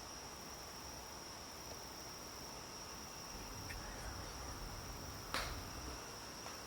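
Faint, steady high-pitched trill of crickets, with one sharp knock a little past five seconds in.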